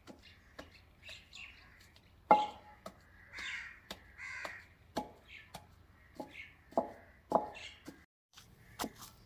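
Red wooden pestle pounding boiled potato and peas in a terracotta mortar: irregular dull thuds every second or two, each a soft squelch into the mash. Two longer bird calls sound around the middle.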